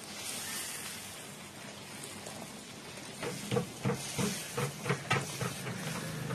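Brinjal gravy simmering in a large metal pot, with a steady hiss of bubbling and steam. About halfway through, a ladle stirring the gravy makes a run of short scraping knocks against the pot.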